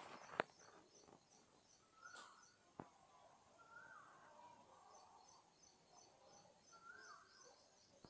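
Faint outdoor ambience with distant bird calls: a few short rising notes and, in the second half, faint high chirping. A sharp click comes about half a second in, and a fainter one near three seconds.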